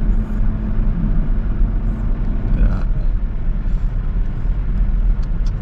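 Steady low rumble of a car heard from inside its cabin. A low hum runs underneath and drops away a little under halfway through.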